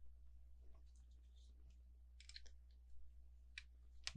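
Faint, scattered clicks of plastic LEGO bricks being handled and pressed together, over a low steady hum.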